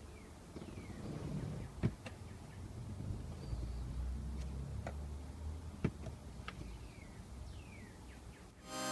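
Faint clicks, knocks and short squeaks of plastic shift-boot and console trim being worked loose by hand in a car's interior, with a few sharp clicks spread through and background music coming in at the very end.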